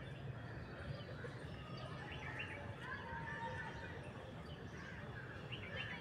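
Outdoor park ambience: a steady low background hum with a few faint bird chirps, a handful around two seconds in and again near the end.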